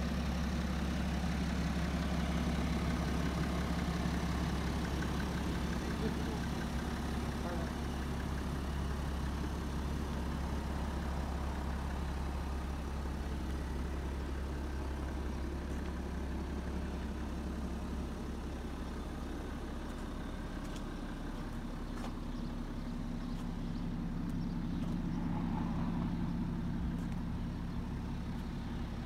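BMW 535d xDrive's three-litre turbo-diesel straight-six idling steadily with a low hum.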